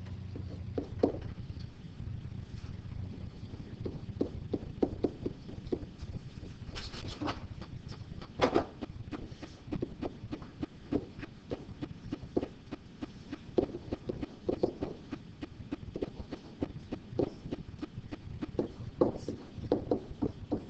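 Classroom room noise: scattered light taps and knocks at an irregular pace, a few of them louder, over a low steady hum.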